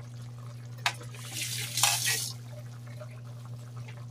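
Two short bursts of liquid noise, running or splashing, with a click just before them, over a steady low hum.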